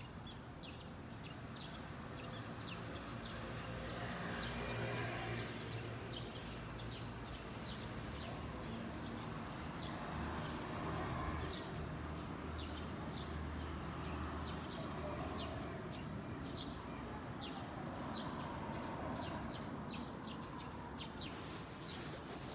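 Small birds chirping in short, scattered calls, several a second, over a steady low outdoor rumble.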